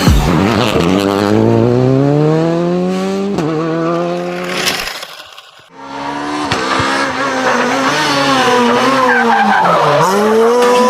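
Racing car engine revving, its pitch climbing steadily for a few seconds. It fades out about halfway, then revs again, wavering, dipping and rising near the end.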